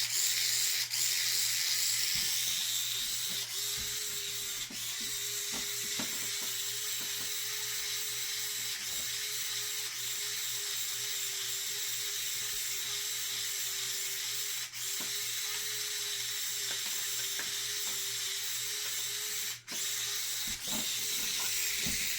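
Small handheld electric mixer running steadily through resin, a constant motor whine over a high hiss, with a few brief clicks.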